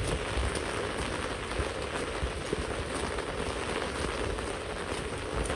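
Runoff water running and splashing down in a small cascade, a steady wash of water noise with scattered small ticks; the water is muddy with sediment from a construction site.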